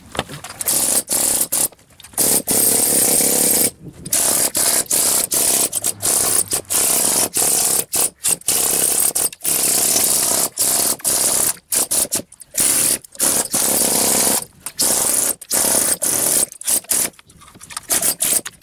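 Güde pneumatic chisel hammer chattering against an old brick wall in many short bursts, stopping and starting every second or so, as it chips off old plaster and mortar, which comes away easily.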